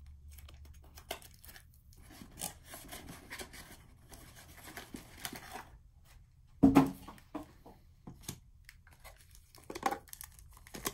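Packaging rustling and tearing as a shipping box is unpacked by hand, with scattered small clicks and one sharp thump about two-thirds of the way through.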